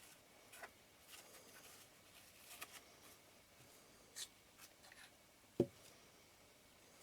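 Faint, scattered small taps and scrapes of hands and tools handling small parts, with one louder short knock about five and a half seconds in.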